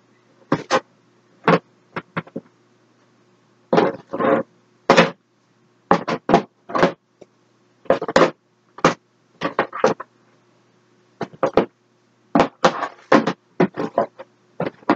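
Makeup products and storage bins being handled and set down: irregular sharp knocks and clatters, some in quick runs of two or three.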